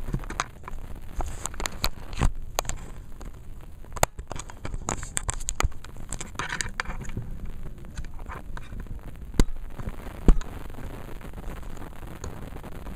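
Handling noise from a handheld camera's microphone as it is moved about: irregular scratches, rubs and crackles over a low rumble, with two sharper knocks about three-quarters of the way in.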